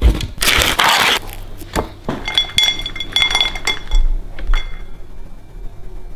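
Rasping strokes of a block of cheese scraped down a metal box grater, followed by a run of light metallic clinks and taps from kitchenware.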